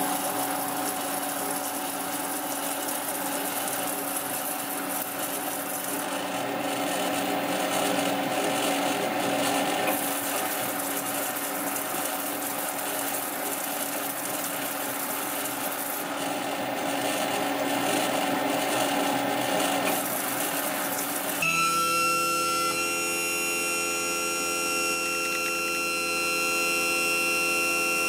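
Struers Tegramin-25 metallographic grinding-polishing machine running: the rotating specimen holder presses samples onto a spinning, water-fed SiC grinding paper (#2400 step), a steady grinding hiss. About 21 seconds in it gives way abruptly to a steady whine of several held tones.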